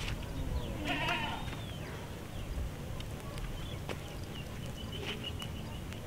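Quiet outdoor ambience with one short wavering animal call about a second in. A few sharp ticks and faint high chirps follow later.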